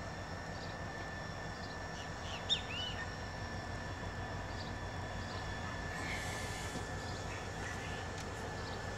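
Birds chirping, with one clearer call about two and a half seconds in, over a steady low hum and a thin steady high tone from diesel locomotives running.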